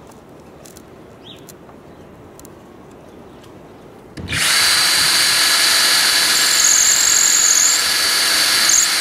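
DeWalt cordless drill starting about four seconds in and running steadily into the wooden side of a nest box, with a steady high whine and a brief rise in pitch near the end.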